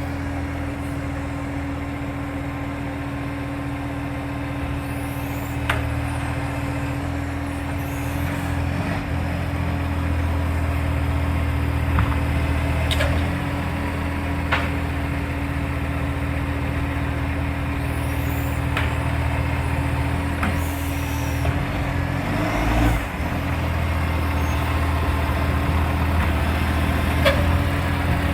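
Garbage truck's diesel engine running steadily, its exhaust leaking, with a sharp click every few seconds. There is a brief change in the low engine sound late on.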